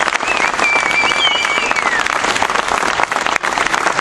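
Crowd applauding and clapping after a speech ends. A high, wavering whistle sounds over the clapping in the first two seconds.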